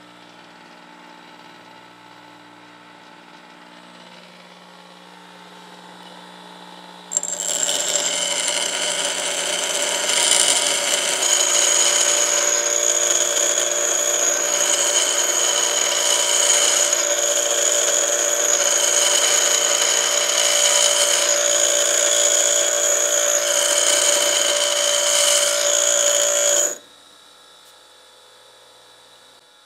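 Bench grinder grinding a steel lathe tool blank, roughing out a parting blade: a quieter steady hum for the first several seconds, then about seven seconds in the steel meets the wheel and a loud, steady grinding with a high whine runs for about twenty seconds. It drops off suddenly near the end, when the blank is lifted and the wheel spins on its own.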